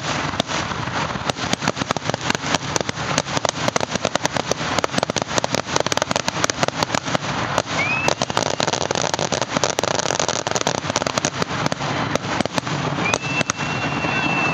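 Fireworks going off in a rapid, continuous barrage of bangs and crackles, many a second. A couple of short high whistles sound near the middle and near the end.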